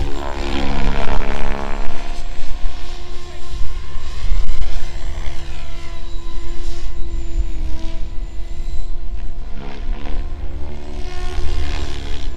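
Electric SAB Kraken 580 RC helicopter flying 3D manoeuvres: its motor and main rotor whine, the pitch falling and rising as it swoops past and the head loads and unloads.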